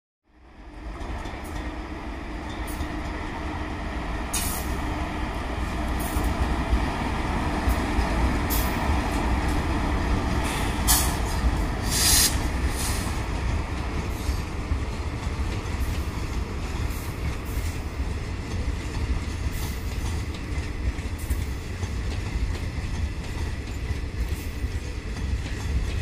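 Express passenger train's coaches rolling past on the track, a steady rumble of wheels on rail that swells up at the start, with sharp wheel clacks at the rail joints, most prominently about halfway through.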